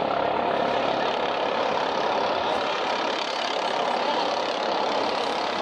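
Rescue helicopter in flight: its turbine and rotor make a steady, even rush.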